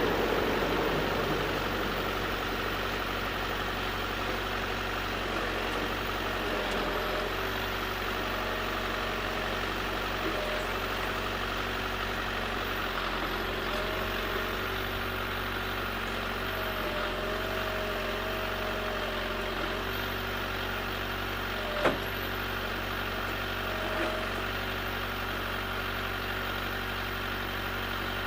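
Backhoe engine running steadily, with a wavering higher whine coming and going over it and a single sharp knock late on.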